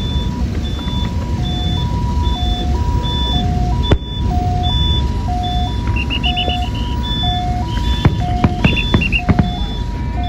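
Firecrackers popping irregularly over a low rumble, while an electronic two-tone signal repeats a high-low beep pattern, roughly one high-low pair every 0.7 seconds. A quick run of higher-pitched chirps sounds about two-thirds of the way through.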